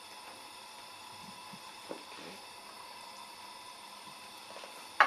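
Chopped onions frying in vegetable oil in a frying pan, a steady soft sizzle. A light tap comes about two seconds in, and a sharp knock, the loudest sound, right at the end.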